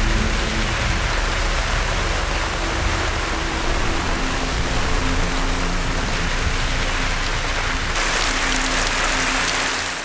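Heavy rain falling, a steady dense hiss; about eight seconds in it turns sharper and brighter.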